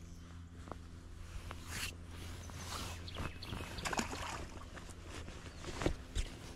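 A white bass dropped back into the river with a small splash about four seconds in, among rustling and handling noises, with a sharp click near the end.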